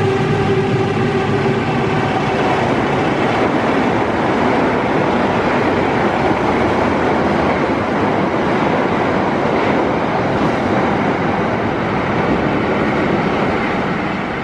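Passenger train passing close by: a loud, steady rumble and rattle of the locomotive and carriages on the rails, with the tail of the locomotive's horn note dying away in the first second or two.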